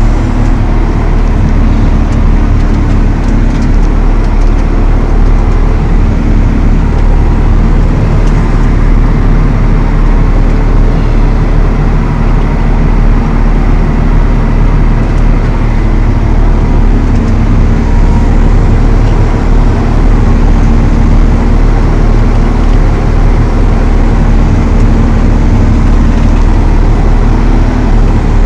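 Valtra T214 tractor's engine running steadily under load while driving an Elho Tornado chain mower, a constant loud drone with a deep hum.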